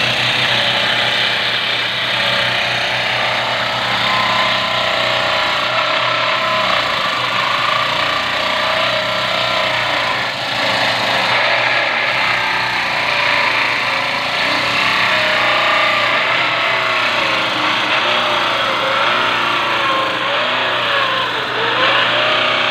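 Electric power tool running continuously while working wood, its pitch wavering slightly under load.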